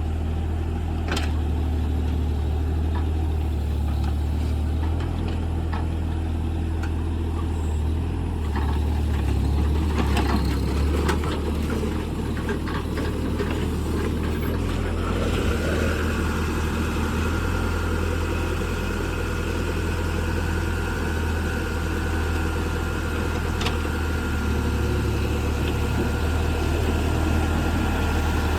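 Diesel engine of a JCB JS30 Plus mini excavator running steadily, with a few short knocks about a second in and again around the middle. A steady high whine joins about halfway through.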